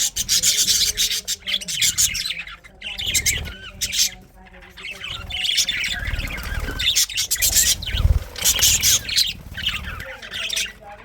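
Budgerigars chirping and chattering, many quick high chirps and warbles overlapping, with some low rumbling noise partway through.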